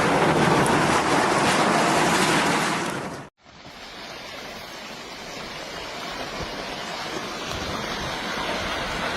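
Loud, heavy rushing of torrential rain or water that cuts off about three seconds in, followed by a softer, steady rushing of fast-moving water that slowly grows louder.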